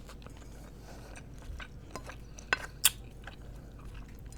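Close-miked eating: soft chewing with a few sharp clicks or crunches, the two loudest close together a little past the middle.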